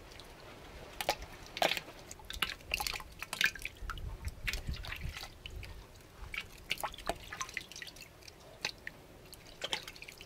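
Water splashing and dripping as hands swish grapes around in a large pot of water and lift dripping bunches out, stripping the grapes from their stems. Small splashes and drips come irregularly.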